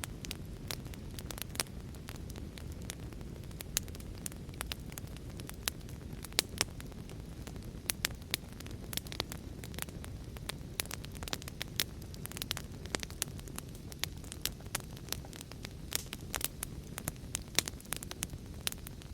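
Wood fire crackling, with many sharp, irregular pops and snaps several times a second over a steady low rumble of heavy rain.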